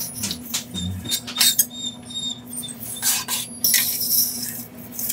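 Metal fork stirring thin puppy mush in a stainless steel puppy feeding saucer: scraping and clicking against the pan, with short high squeaks in the first half and a longer scrape about four seconds in.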